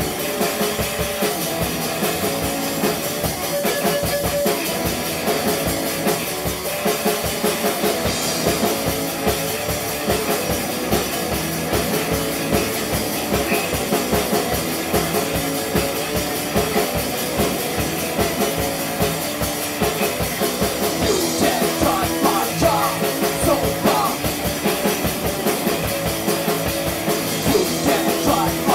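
Garage rock band playing: a driving beat on the drum kit under electric guitars.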